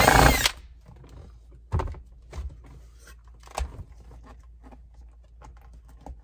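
Power drill enlarging a drilled hole in the console for the charger's wire, running hard and then stopping about half a second in. A few knocks and light clicks of handling follow.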